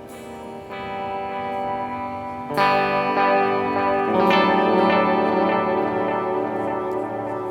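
Electric guitar (a Framus Idol Maker) played through a delay pedal: chords struck and left ringing, layering with their repeats. New chords come in about a second in, more loudly at two and a half seconds, and again at four seconds.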